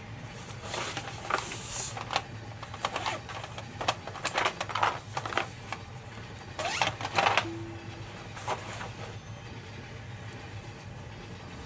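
Hands rummaging in a fabric pencil pouch and handling coloured pencils and a pen case: several short bursts of rustling and clicking, the loudest about seven seconds in, over a steady low hum.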